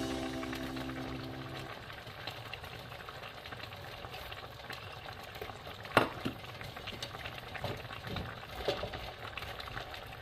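Food being arranged by hand in a stainless steel bowl: faint rustling and small scattered clicks, with one sharp click about six seconds in.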